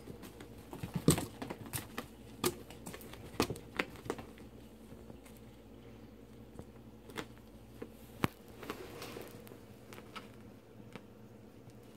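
Scattered light taps and crinkly rustles of a cat batting and pouncing on a wand toy with streamers dragged across carpet, the sharpest tap about a second in and another about eight seconds in.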